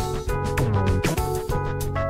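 Background music with held pitched notes and a steady drum beat.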